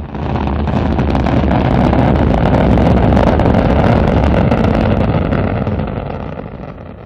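Sound effect of a rocket engine firing: a dense, rushing rumble with heavy bass. It builds back up after a brief dip at the start, holds steady, then fades out over the last couple of seconds.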